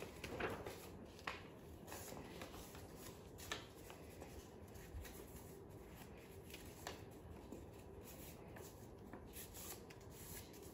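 Faint rustling and crinkling of a sheet of origami paper being folded and creased by hand, with a few short sharper crackles.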